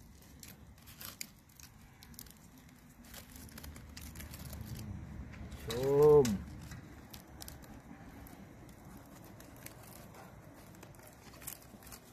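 Charred banana-leaf parcel being untied by hand: a scatter of small clicks and crinkles as the leaves and the tie are pulled. About six seconds in, a short, loud pitched call rises and falls, louder than the handling.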